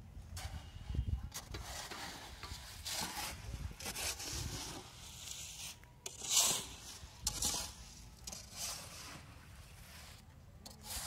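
A hoe scraping through wet concrete mix and gravel in a round cement mixing basin, hand-mixing concrete. It comes as irregular rasping strokes about once a second, the loudest about six and a half seconds in.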